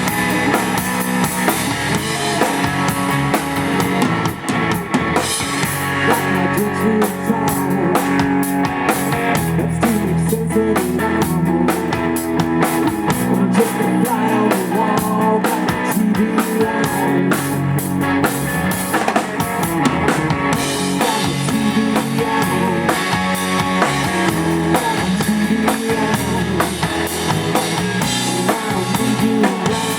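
Live rock band playing an instrumental passage: drum kit with kick drum and snare rimshots, electric guitars and bass.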